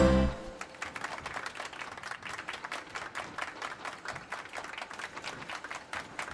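A short, heavy low thump, then steady applause from many hands.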